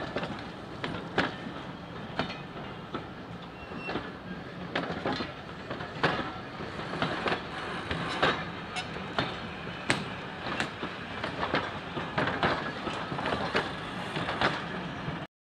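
Railway passenger coaches rolling past: a steady rumble from the wheels on the track, broken by sharp, irregular clicks and clacks. The sound cuts off suddenly near the end.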